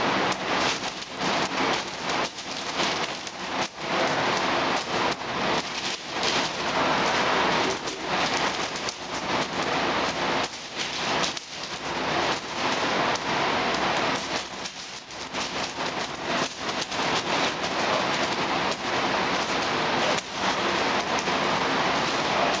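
Heavy steel chains clinking and rattling as they are hung around a lifter's neck and swing during weighted dips, over a steady loud hiss with a thin high-pitched whine.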